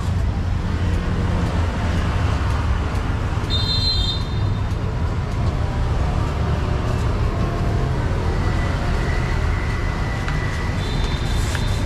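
Street traffic noise: a steady low rumble of passing vehicles, with a couple of brief high-pitched tones, one about three and a half seconds in and one near the end.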